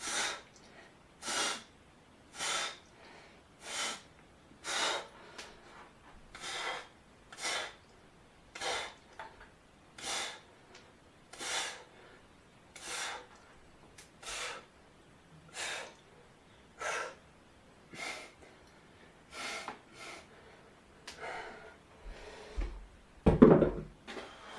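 A man's sharp exhalations through pursed lips, one with each arm swing of a shoulder warm-up, about one every second and a quarter. Near the end, a louder thump.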